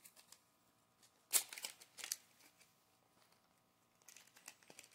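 Small clear plastic parts bag being handled, crinkling in short bursts, the loudest about a second and a half in and a cluster of lighter crackles near the end.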